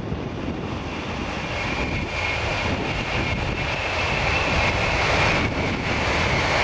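Tokaido Shinkansen high-speed train passing close by at speed: a steady rushing roar of air and wheels, with a high whine that comes in about a second and a half in. It grows louder toward the end.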